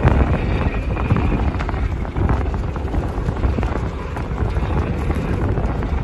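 Road noise heard from inside a car driving on a snow-covered highway: a steady low rumble of tyres and engine, with a dense spatter of small irregular ticks over it.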